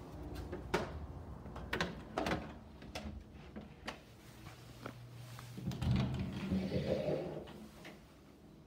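A few sharp clicks and knocks, then a louder stretch of rubbing and rumbling as an interior closet door with a brass knob is opened.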